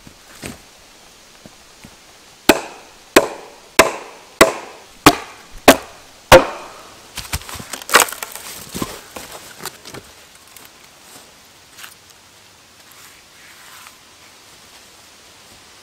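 Wooden mallet driving wooden wedges into a birch log: seven sharp knocks about two-thirds of a second apart, then the log cracking and splintering as it splits open along its length.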